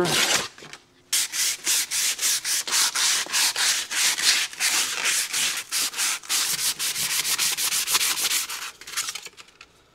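280-grit sandpaper wrapped around a steel axle halfshaft, rubbed by hand in quick, even back-and-forth strokes to take off paint left after chemical stripping and prepare the shaft for paint. The strokes start about a second in and stop near the end.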